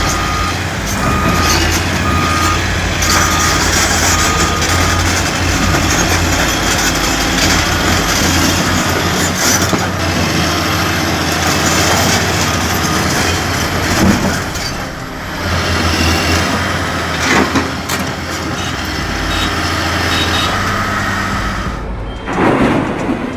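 Heavy earthmoving machine's engine running under load, with its reversing alarm beeping in a steady repeated pulse that fades out after several seconds.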